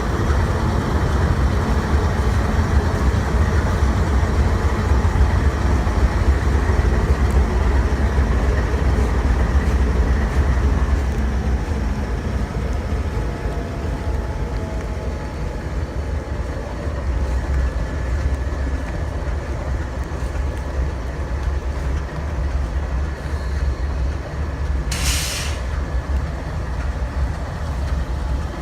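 CSX freight train rolling past, a steady low rumble of cars on the rails that eases a little about a third of the way through. About 25 seconds in, a brief hiss cuts across it.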